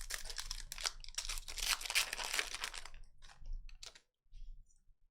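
A trading card pack wrapper being torn open and crinkled, a dense rustling for about three seconds, then a few light ticks of handling.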